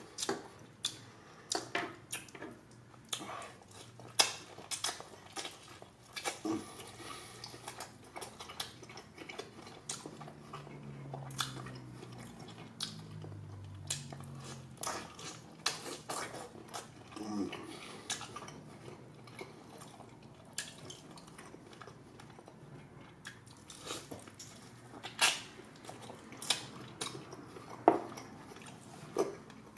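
Close-miked chewing and biting of grilled tomahawk steak, with scattered sharp clicks throughout.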